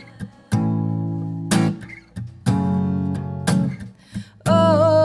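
Acoustic guitar strumming chords, about one a second, each ringing briefly and then cut short.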